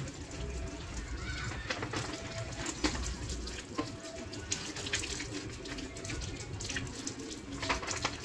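Water from a garden hose running and splashing over a motorcycle and the wet concrete, with scattered small knocks and clatters throughout.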